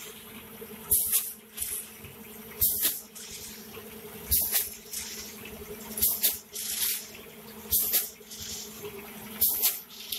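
Automatic vertical form-fill-seal snack pouch packing machine running: its pneumatic sealing and cutting jaws cycle about every 1.7 s, each stroke a sharp hiss of compressed air with a clack, over a steady machine hum. That pace, about 35 strokes a minute, is one pouch sealed and cut per stroke.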